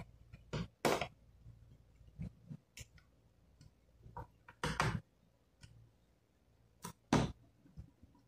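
Hands pressing and tapping on a laptop's plastic bottom cover: a run of sharp clicks and taps at irregular intervals, the loudest a pair about seven seconds in.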